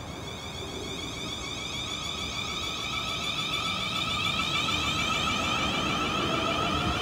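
Siemens Class 450 Desiro electric multiple unit pulling away from standstill. Its traction equipment gives a steady whine of several high tones over the rumble of the train, with a faint rising note near the end, growing louder as the train moves past.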